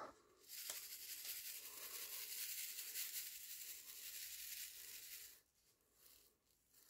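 Square diamond-painting drills rattling and sliding in a plastic diamond-painting tray as it is shaken to settle them into rows. A fine, steady rattle that stops about five seconds in.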